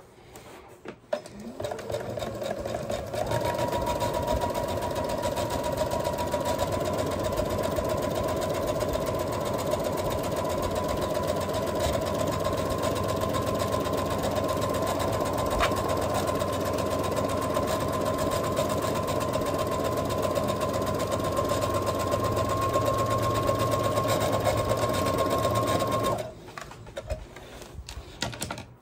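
Computerized home sewing machine stitching one long continuous seam at a steady speed, a motor hum with a steady whine over it. It is sewing the second, enclosing pass of a French seam. It starts about two seconds in and stops abruptly a couple of seconds before the end, leaving only faint fabric handling.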